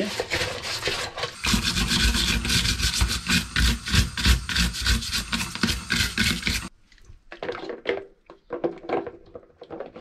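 Small stiff plastic brush scrubbing grime and lint residue at the bottom of a washing machine's outer bowl, in quick repeated strokes. For a few seconds in the middle, louder and denser, a brush is scrubbed under running water in a steel sink; this cuts off suddenly, and quieter scrubbing strokes follow.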